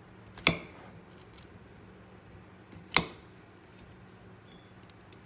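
Metal spoon clinking against a glass salad bowl twice, about two and a half seconds apart, with a short ring after each clink.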